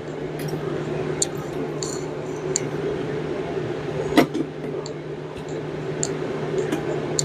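Scattered metallic clicks and clinks of hand tools and engine parts being handled, with one sharper knock about four seconds in, over a steady background hum.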